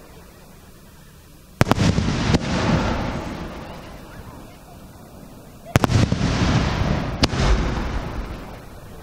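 Aerial firework shells bursting overhead. A sudden bang comes about a second and a half in, with a few sharp cracks, then a fading rumble. A second burst follows about six seconds in, with another crack a second later, and fades the same way.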